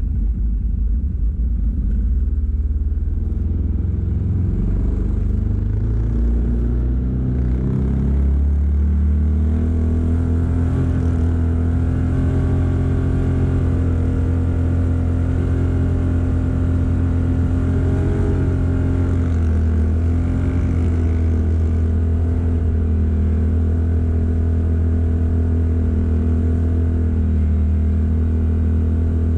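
Vehicle engine pulling away, its pitch climbing over the first several seconds, then running steadily at cruising speed with a deep rumble.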